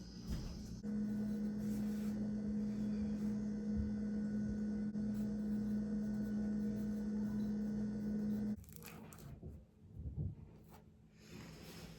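A steady electric hum from a small appliance. It switches on about a second in, runs evenly for about seven and a half seconds, then cuts off abruptly, leaving faint handling noises.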